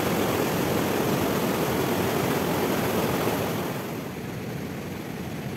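Turbulent water rushing steadily down a small canal carrying water released from the dam. The noise drops noticeably quieter about four seconds in.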